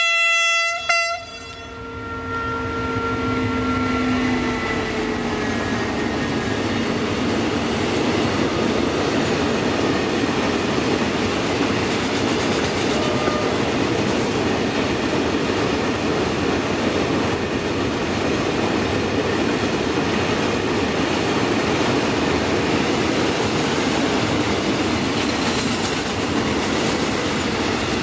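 Diesel freight locomotive sounding two short horn blasts, then passing close, followed by a long train of container wagons rolling by steadily on the rails.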